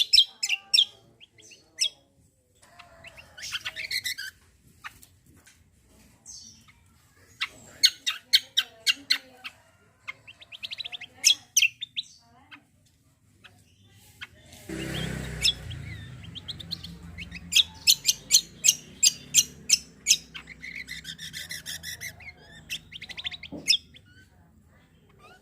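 Kecial kombo (cucak kombo) songbird singing hard: repeated bursts of rapid, sharp, high staccato notes, the rattling 'tembakan' and harsh 'besetan' phrases, separated by short pauses. About halfway through there is a brief, broad rushing noise with a low rumble.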